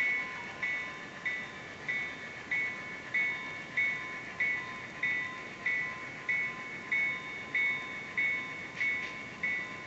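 GP9 diesel locomotive's bell ringing steadily, about one and a half strikes a second, each strike ringing on and fading before the next.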